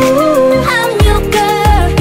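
K-pop song playing: a sung melody over a dance beat, with a drum hit about a second in.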